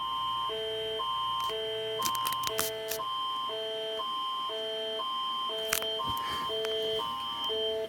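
Canadian Alert Ready emergency alert attention signal heard over AM radio: two tone chords switch back and forth every half second over a steady high tone for about eight seconds, with a few crackles of static. It announces a province-wide test alert.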